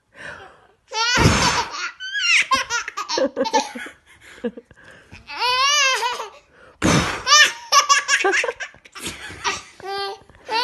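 Two short gusts of breath blown on a leaf close to the microphone, about a second in and about seven seconds in. Each is followed by a baby girl laughing in rapid, repeated, high, wavering bursts.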